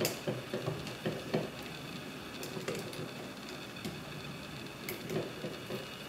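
Lock picks working inside a Yale lever lock: light, irregular metallic clicks and scrapes as the tool lifts the levers, with a few soft handling knocks.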